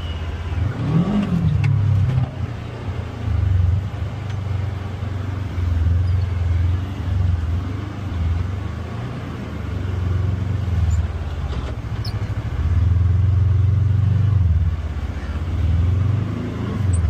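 Polaris Xpedition UTV engine running on an off-road trail, revving up about a second in and then surging and easing again and again as the throttle is worked.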